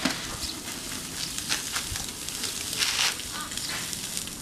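Sausages and steak sizzling on a charcoal kettle grill: a steady hiss with scattered crackles and pops.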